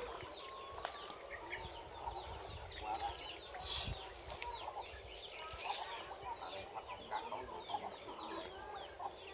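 Poultry calling: many short, high peeping chirps scattered throughout, faint, with a brief rustling burst about four seconds in.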